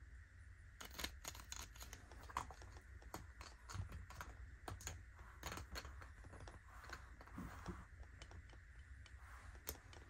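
Ornate gold-finish lipstick tubes and compact cases being handled and tapped by long fingernails: an irregular run of light, sharp clicks and taps, over a faint steady low hum.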